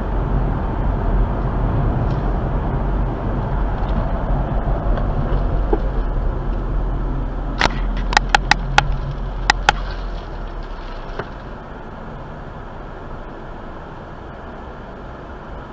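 Car driving noise heard inside the cabin: a steady low road and engine rumble, with a quick run of about seven sharp clicks around the middle. The rumble gets quieter in the second half.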